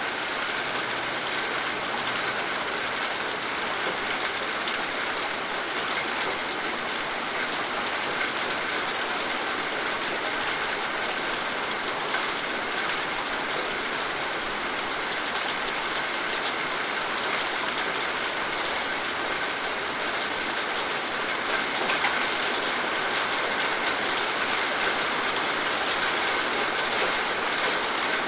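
Steady rain falling and pattering on a surface, an even hiss with many fine drop ticks.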